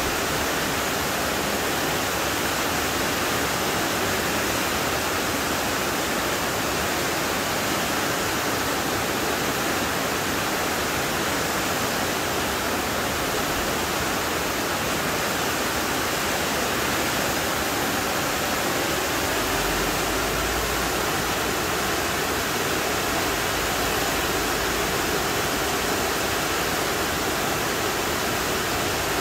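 Shequaga Falls, a tall waterfall cascading down a partly frozen rock face: a steady, unbroken rush of falling water.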